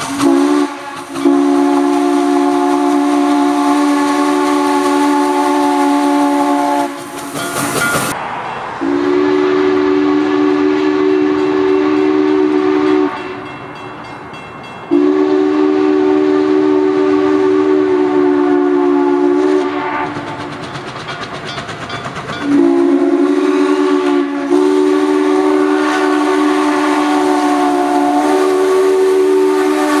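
Steam locomotive's chime whistle sounding several notes at once in a series of long blasts for a grade crossing. Near the end the blasts run long, long, short, long, the crossing signal. Between blasts the locomotive's exhaust and the rolling train are heard.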